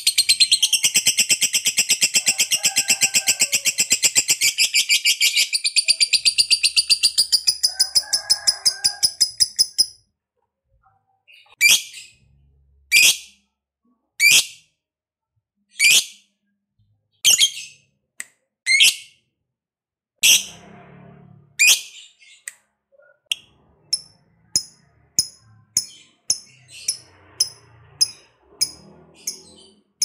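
Lovebird giving its long, rapid chattering trill (ngekek) for about ten seconds, which then stops. After that come single sharp chirps about every second and a half, and near the end shorter chirps at about two a second.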